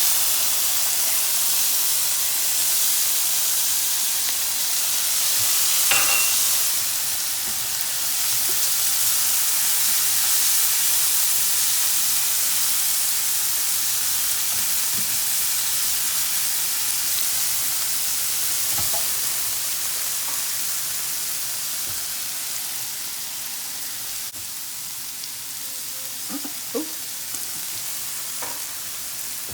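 Cauliflower steak sizzling in a frying pan, a steady hiss that slowly grows quieter, with a few brief clicks here and there.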